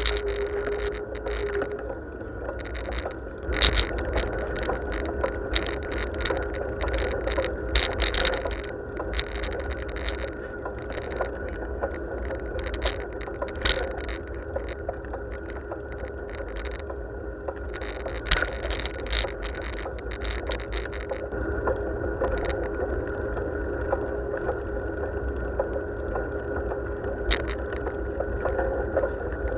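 Riding noise of a bicycle on a road, picked up by a camera mounted on the bike: a steady rumble of tyres and wind, broken by frequent rattling clicks, a few of them louder.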